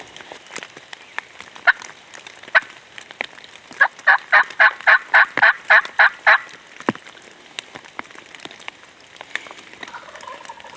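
Turkey calling: a quick, evenly spaced run of about a dozen sharp notes, some five a second, lasting a couple of seconds, starting about four seconds in.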